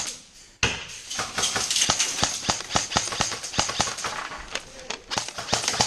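Footsteps and rattling gear as an airsoft player moves quickly: a rapid, uneven clatter of knocks that starts suddenly about half a second in.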